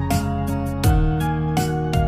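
Background music: a gentle instrumental track with plucked notes and a steady beat.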